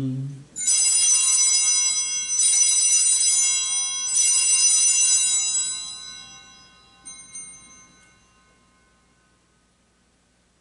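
Altar bells (a cluster of small Sanctus bells) rung in three shakes, each ringing about a second and a half, then dying away, with one faint extra ring near the end. They mark the elevation of the chalice at the consecration.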